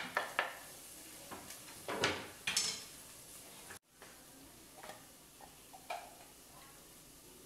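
Chopped tomatoes scraped off a wooden cutting board into a pot of frying onion: a few sharp knocks of the board against the pot, then two louder scrapes, over a sizzle. After a short break the sizzle goes on more softly, with a few light clicks.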